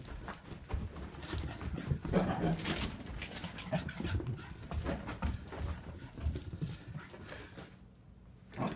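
An excited dog racing around, its paws making quick clicks and thumps, with panting and a brief low growl-like noise about two seconds in. It goes quiet near the end.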